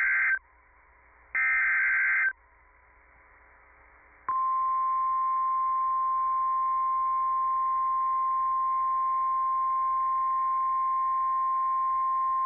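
Emergency Alert System SAME digital header bursts, harsh screeching data tones: one ends just after the start and another runs from about 1.5 to 2.3 seconds. Then, about four seconds in, a steady single-pitch 1050 Hz NOAA Weather Radio warning alarm tone begins and holds. This is the alert sequence that opens the next warning broadcast.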